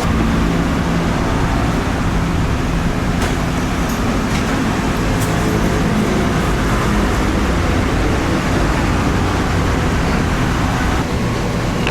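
Steady low mechanical hum over a constant wash of background noise.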